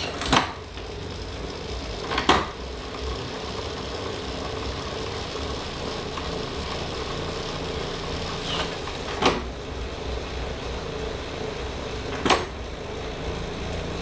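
Tacx Flux S direct-drive smart trainer running with a rider pedalling up toward 20 mph: a steady flywheel and drivetrain hum with a held mid-pitched tone. A few sharp clicks stand out, near the start, about two seconds in, and twice in the last five seconds.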